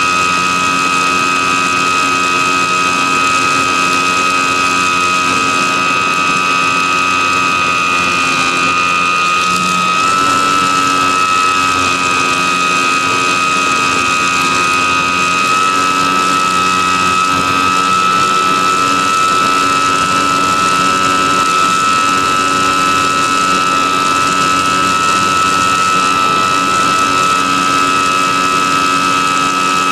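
E-flite Apprentice S 15e RC plane's electric motor and propeller in flight, heard from aboard the plane: a steady high whine with airflow hiss, shifting slightly in pitch about a third of the way in and again around halfway as the throttle changes.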